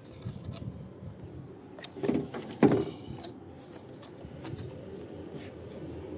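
Scattered clicks and knocks of plastic clips and parts being worked loose on a car door, with a louder clatter about two and a half seconds in.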